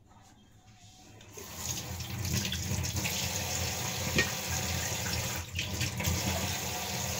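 Kitchen tap turned on about a second and a half in, water running steadily into the sink as the vegetables are rinsed under it, with one light knock about four seconds in.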